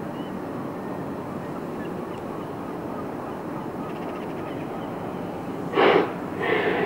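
Steady low rumble, then about six seconds in two loud, short goose honks close together.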